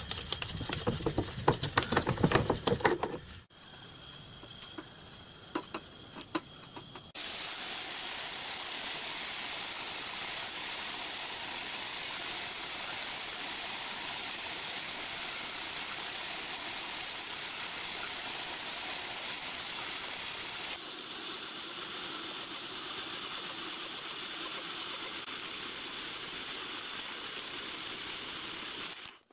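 Metal parts clattering as a workpiece is handled and set up, then a pillar drill runs steadily with a high whine, drilling holes in a bronze cylinder end cover.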